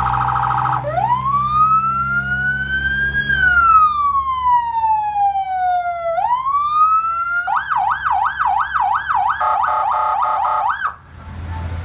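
AXIXTECH electronic vehicle siren cycling through its tones: a rapid warble, then a slow wail that rises and falls, then a yelp at about three sweeps a second, then a very fast warble, cutting off suddenly about eleven seconds in. A low engine hum runs underneath.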